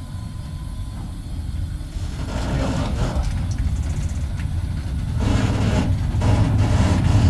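East German-built EL2 electric locomotive moving slowly, a steady low rumble of the locomotive and its wheels on the track that grows louder about five seconds in.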